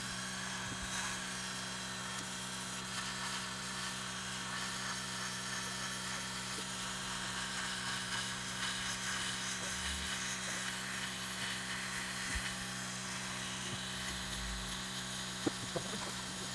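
Creality Falcon 2 22 W diode laser engraver running while it cuts: a steady hum and whir from its built-in air-assist compressor and fans, with a couple of faint low thumps.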